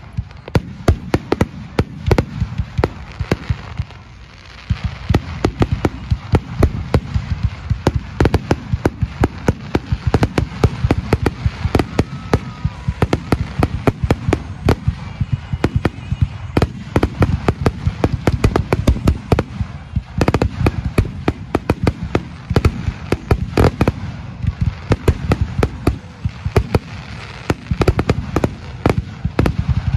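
Fireworks display: aerial fireworks bursting in rapid, dense bangs and crackles over a deep rumble, with a brief lull about four seconds in.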